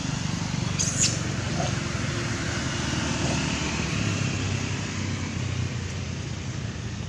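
Steady rumble of road traffic going by. About a second in, a macaque gives one short high-pitched squeal.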